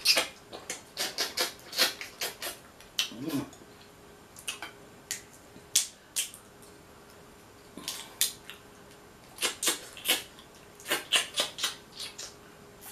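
Boiled Dungeness crab shell being cracked and pried apart with a hand crab-cracking tool: irregular sharp cracks and clicks, some in quick clusters of several.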